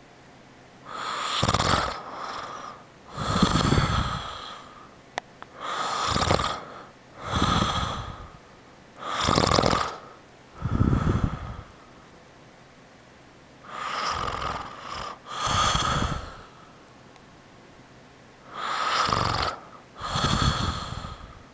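A man snoring in his sleep: rasping snores about a second long, mostly in pairs, with quiet pauses between breaths.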